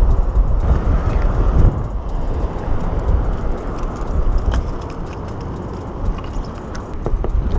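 Strong wind buffeting the microphone in a steady rumble, with a few light clicks and knocks.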